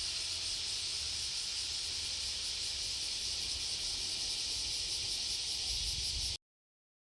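Steady, dense high-pitched buzzing of a summer cicada chorus, with a faint low rumble beneath it; the sound cuts off abruptly about six seconds in.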